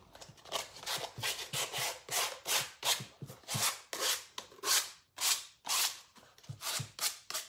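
220-grit sandpaper rubbed over a painted canvas shoe in quick back-and-forth strokes, about two or three a second, scuffing the dried paint to soften it.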